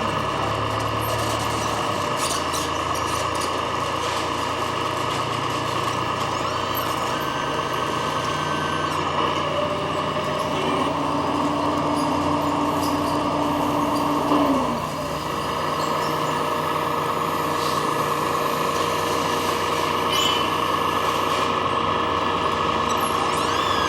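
Radio-controlled model construction machines running with a steady mechanical whine and hum, as from electric hydraulic pumps and motors. A lower steady tone comes in about ten seconds in, holds for about four seconds, then stops.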